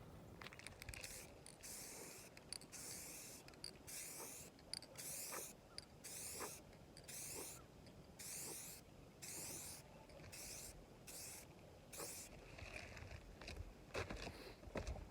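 Cardboard being cut, a long run of short rasping strokes with small clicks between them.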